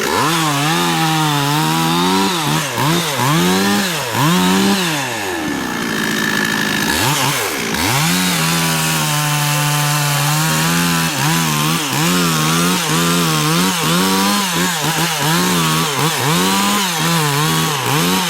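Two-stroke chainsaw cutting, its engine speed rising and falling again and again as the cutter works the saw, with one longer drop in revs part-way through and a steadier stretch at high speed just after.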